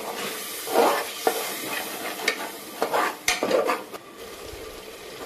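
Metal spatula stirring onion-tomato masala in an aluminium pressure cooker, scraping the pot in several irregular strokes over a frying sizzle; the masala has just had a little water added so it won't stick. It goes quieter near the end.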